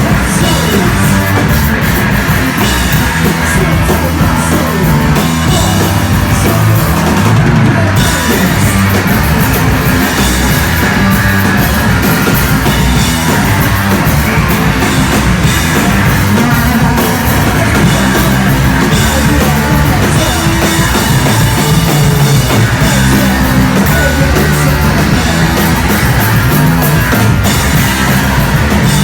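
Loud, heavy punk rock music with a pounding drum kit, playing without a break.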